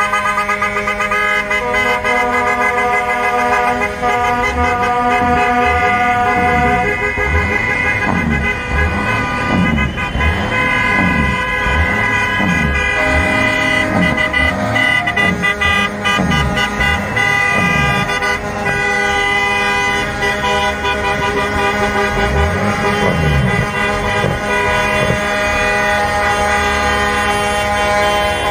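Many truck air horns and car horns honking at once in long, overlapping blasts.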